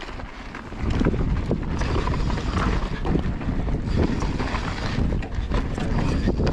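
Mountain bike descending a dry dirt trail, with wind buffeting the action camera's microphone and the tyres and frame rattling over dirt and roots. The noise comes up about a second in as the bike picks up speed, then stays steady and loud.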